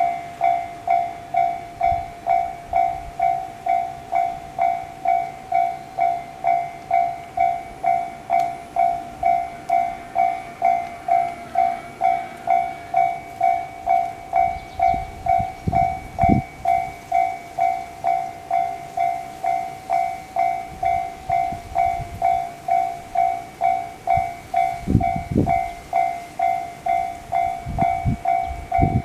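Japanese railway level-crossing alarm ringing its repeated electronic bell, just under two strikes a second, slightly distorted. A few low thumps come about halfway through and near the end.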